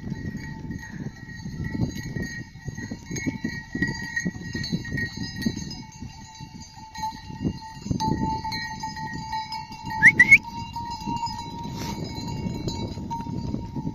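Livestock bells ringing steadily over low, rough scuffling noise while shepherd-dog puppies play-fight, with a brief high rising squeal about ten seconds in.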